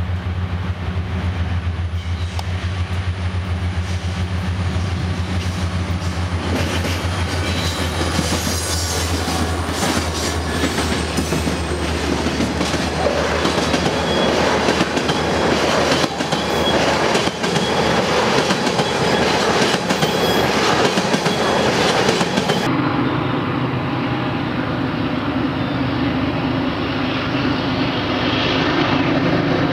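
Freight train passing close by: a steady diesel locomotive drone, then a long string of tank cars rolling past with the wheels clicking and rattling over the rail joints. About two-thirds of the way through it cuts to a different train, BNSF diesel locomotives approaching with a steady engine drone.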